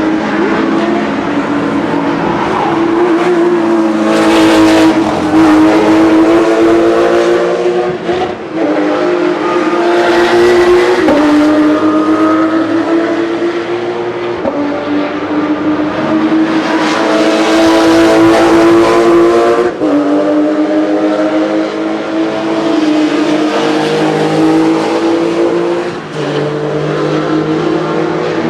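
Porsche sports car engine running hard on a racetrack. Its note climbs steadily, then drops sharply with a brief dip in loudness about four times: upshifts under acceleration.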